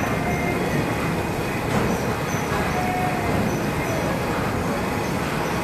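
Oil-press machinery for cold-pressing black sesame running with a steady, dense mechanical noise, with faint high chirps recurring through it.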